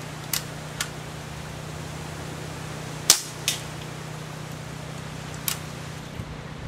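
Daisy PowerLine 1200 CO2 BB pistol firing, with sharp pops about five times. The loudest comes about three seconds in, with a fainter crack right after it, over a steady low hum.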